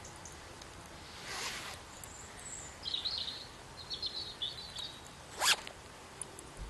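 A hoodie's zipper is unzipped in one long pull about a second in, then fiddled with at the bottom end, and zipped up in one quick, sharp pull near the end.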